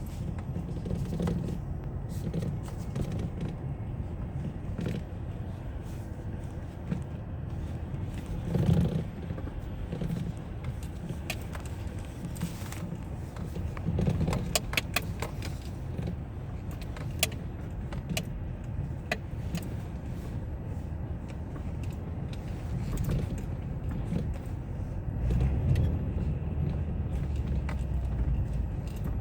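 A 2005 Citroën C5 with a steady low rumble and sharp metallic knocks and clatter, bunched most thickly about halfway through. The knocking comes from the steering rack.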